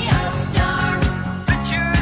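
Background pop music with a steady beat, about two beats a second.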